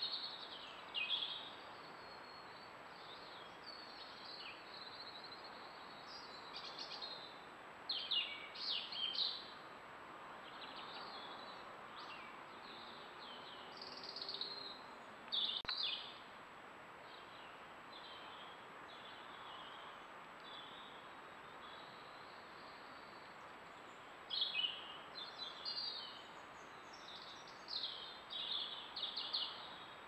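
A small songbird singing in scattered phrases of short, high chirps every few seconds, over a steady hiss.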